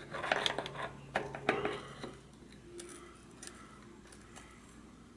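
Cone wrench and adjustable wrench clinking against each other and the lock nut as the lock nut is tightened down against the cone of a rear bicycle hub: a quick run of metal clinks over the first two seconds, then a few faint ticks.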